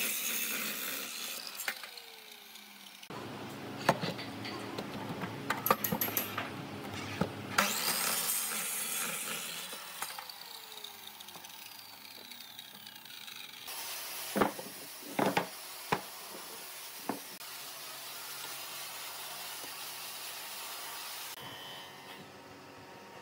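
Miter saw cutting through thick hardwood beams, a loud rasping cut more than once, with the motor's whine falling in pitch as the blade winds down after the cuts. A few sharp knocks of wood follow, then a steady low hum.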